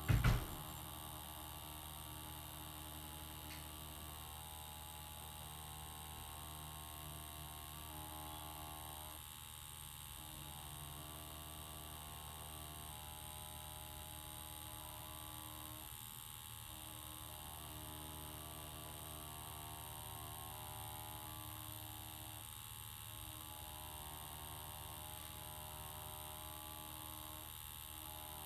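Tattoo machine running at a steady speed with a constant electric hum while lining. A brief knock right at the start.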